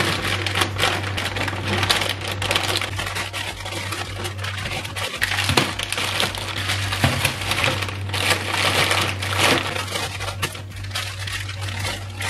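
Plastic packets of frozen food crinkling and rustling as they are handled and stacked into a plastic freezer drawer, with a few soft knocks. A steady low hum runs underneath.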